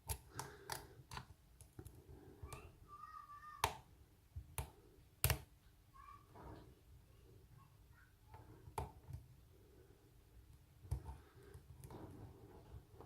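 Lock pick and tension wrench working the pin stack of an aluminium American Lock Company 1205 padlock: faint, irregular clicks with a few short squeaks.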